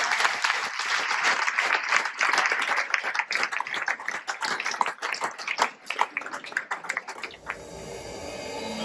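Audience applauding, dying away about seven seconds in, followed by a quiet sound that swells toward the end.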